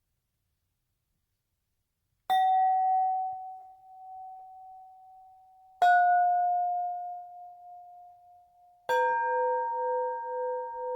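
Three metal percussion pieces struck one after another, each left to ring out with a long clear tone: the first about two seconds in, the second a few seconds later and a little lower, the third near the end, lower still, holding two tones with a slow wavering beat.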